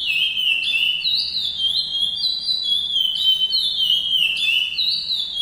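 Male curió (chestnut-bellied seed finch) singing a continuous song of clear whistled notes that step up and down in pitch, in the classic 'praia' style, breaking off near the end.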